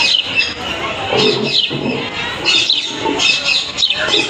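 Birds chirping and squawking in short repeated calls over a crowd's murmur.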